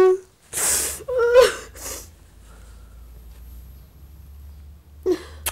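A crying woman blows her nose into a tissue twice in quick succession, with a short whimpering sob between the blows, in the first two seconds; after that it is quiet.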